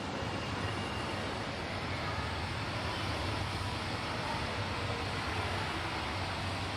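A steady low rumble with an even hiss above it, unchanging and without any distinct strikes or tones.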